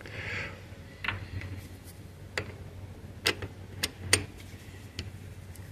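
A few sharp, light clicks and taps of small hand tools and metal hardware being handled as the bolts holding a joystick's circuit board are loosened. Two of the clicks come close together near the end.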